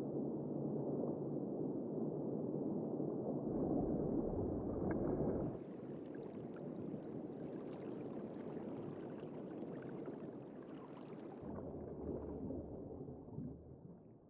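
Underwater ambience: a muffled, steady rush of water. About five seconds in, the deep part drops away and fine crackling clicks come in over it for several seconds. Then the low rush returns and fades out near the end.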